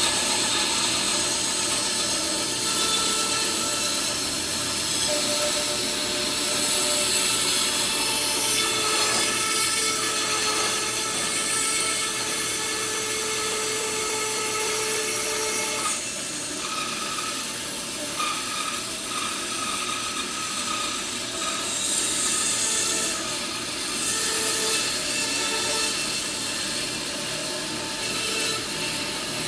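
Woodworking power tool running and working redwood, a steady machine noise with the wood being cut; it gets a little quieter about halfway through.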